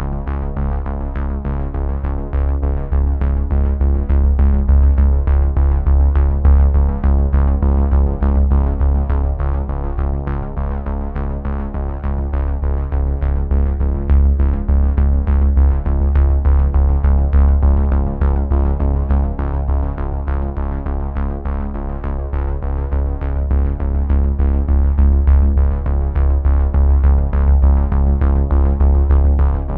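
Background music built on synthesizer, with a steady beat and a heavy bass.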